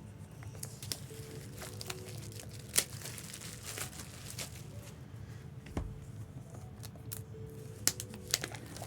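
Trading card boxes and their plastic packaging being handled and opened: crinkling and tearing of wrapper, with scattered sharp clicks and taps of cardboard.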